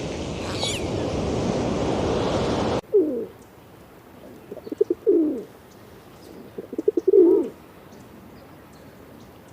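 A steady rushing noise cuts off about three seconds in, then a pigeon coos three times. Each coo is a few quick low notes running into a longer rolling note.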